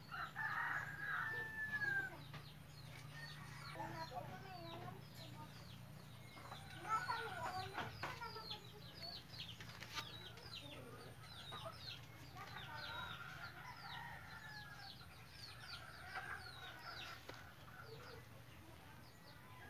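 Faint birds chirping: many short falling chirps throughout, with a few longer calls now and then.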